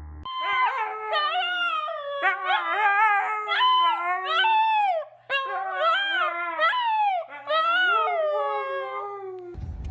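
A dog howling in long calls that waver up and down in pitch, with two short breaks.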